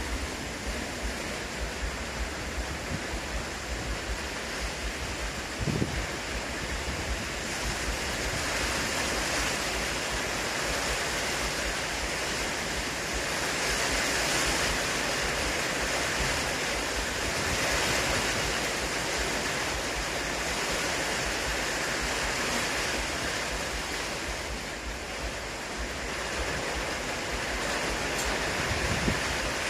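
Strong wind blowing steadily in gusts that swell and ease, with wind buffeting the microphone.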